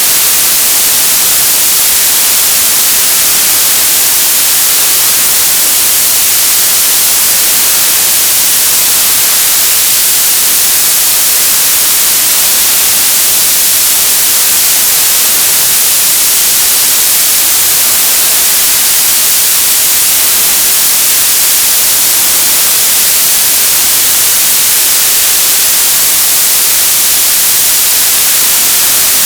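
Television static: a loud, steady hiss of white noise, brightest in the treble, unchanging throughout.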